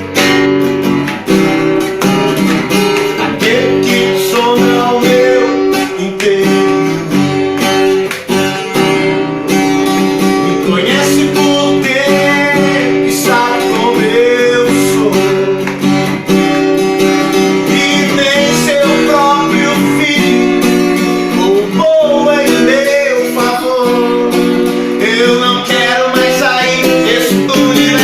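Acoustic guitar strummed live, with a voice singing over it in places.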